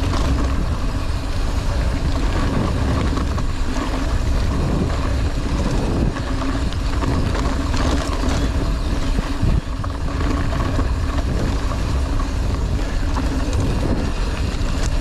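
Mountain bike ridden over a rough trail: steady rumble of wind on the microphone with rattling and scattered knocks from the bike and tyres.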